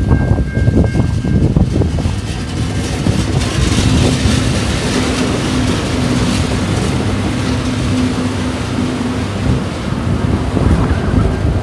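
Two TasRail TR class diesel-electric locomotives passing close by, their engines running with a steady low hum. Near the end the first container wagons follow, their wheels knocking over the rails.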